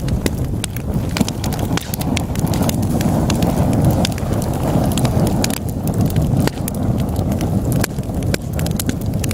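Wood fire burning in a fireplace: a steady low rumble of flames with many sharp, irregular crackles and pops from the burning logs.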